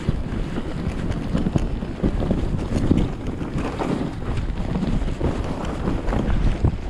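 Wind buffeting the camera microphone while skiing downhill, with skis hissing and scraping through soft powder snow in uneven surges.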